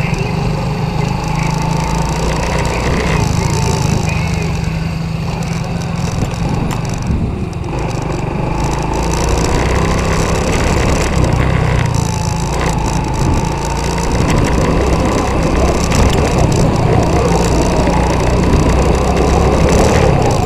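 Small 125 cc quad bike engine running while the ATV is ridden over a field, its engine note wavering up and down over a steady crackling rattle.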